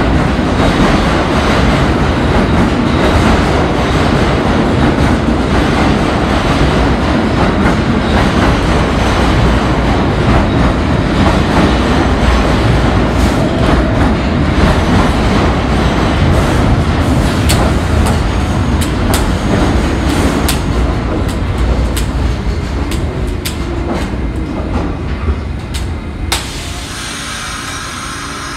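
R46 subway train pulling into an underground station: a loud, steady rumble of steel wheels on rail that slowly fades as the train slows to a stop. In the second half come sharp clicks of the wheels over the rail joints, and near the end a few high steady tones.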